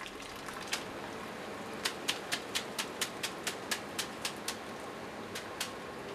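Ramen noodles being drained in a metal noodle strainer (tebo), snapped up and down over the boiling pot. The sharp 'chaccha' strikes come about four a second from about two seconds in, with a short pause near the end, over a steady hiss.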